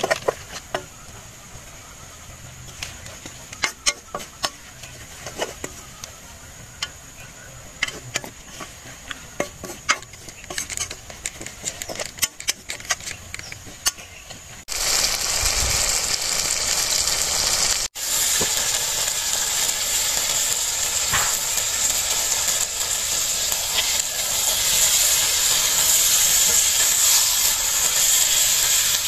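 A steel spoon scrapes and taps against a black iron kadai as onion masala is stirred, giving many short sharp clicks. About halfway through, a loud sizzling hiss starts suddenly as raw chicken pieces go into the hot oil, and it carries on with stirring, growing a little louder toward the end.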